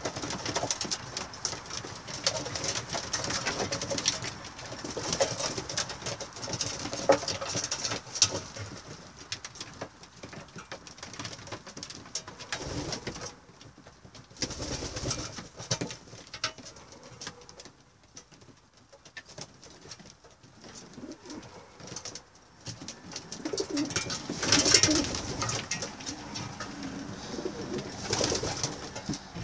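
A flock of homing pigeons cooing in a small loft, with scattered clicks and rustling among the birds. Busiest at the start and again near the end, with a quieter stretch in the middle.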